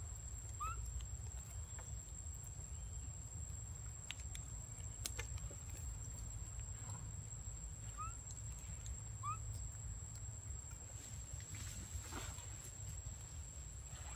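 Quiet forest ambience: a steady low rumble with a thin high steady tone, three short rising chirps, and a few faint clicks and leaf rustles.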